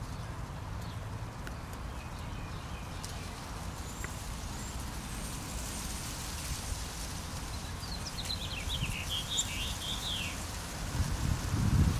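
A bird calls: a quick run of short chirping notes about two-thirds of the way in, over a steady low outdoor rumble. A louder low buffeting rumble comes near the end.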